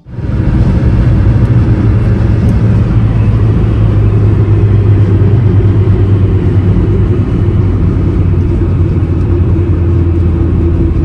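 Car driving at highway speed: a steady, loud rumble of road and wind noise with a low hum.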